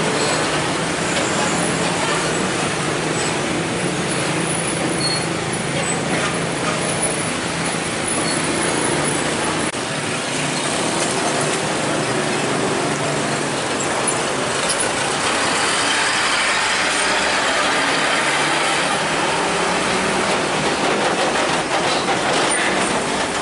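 Heavy road traffic with diesel truck engines running: a steady, loud mix of engine noise and tyre hiss, growing a little brighter after the middle.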